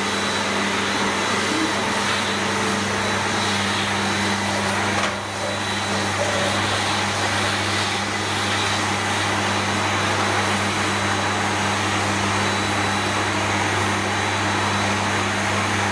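Electric vacuum cleaner running steadily, with a brief dip in level about five seconds in.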